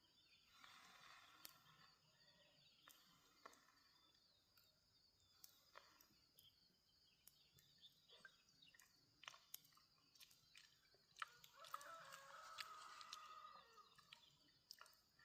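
Quiet rural background with a faint steady high hiss and scattered small clicks. About eleven seconds in, a chicken calls for about two seconds.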